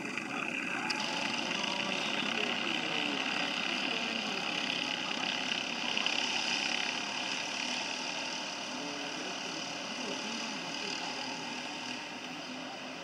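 Several racing kart engines buzzing steadily in the distance as the karts lap the circuit, their overlapping engine notes forming a layered high drone. The sound swells a little around the middle and then eases.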